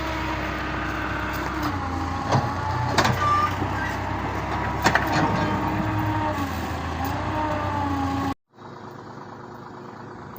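A heavy machine's engine running steadily, its pitch dipping and recovering a few times as if under changing load, with several sharp clanks. Near the end it cuts to a quieter, steady engine hum.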